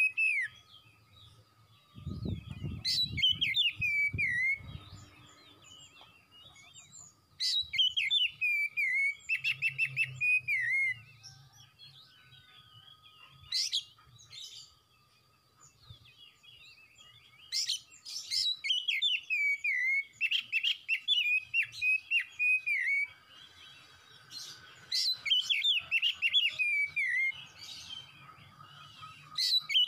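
Male oriental magpie-robin singing vigorously: bursts of quick, varied whistles, sliding notes and sharp chirps, several phrases broken by short pauses. A low rumble sounds under the song a few seconds in.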